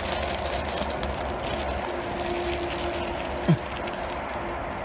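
A steady rushing rumble and hiss, with one short falling yelp from a small dog about three and a half seconds in.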